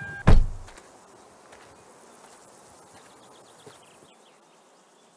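A car door, the Kia Soul's, slams shut once right at the start, and the door-open warning chime cuts off with it. Afterwards there is only faint outdoor background with a few faint chirps.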